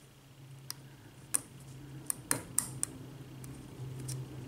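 Steel lock pick clicking and tapping on the pin stacks inside the keyway of an Abus Series 2 8345 padlock during single-pin picking: a handful of sharp, light metallic clicks at irregular intervals, over a faint steady low hum.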